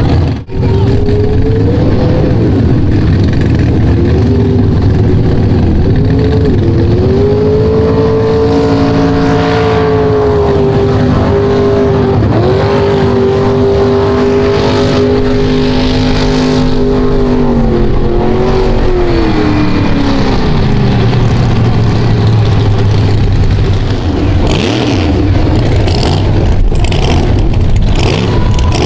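Mega mud truck's engine running at high revs as the truck ploughs through a deep mud pit, its pitch wavering and dipping a few times. The revs fall away about two-thirds of the way through.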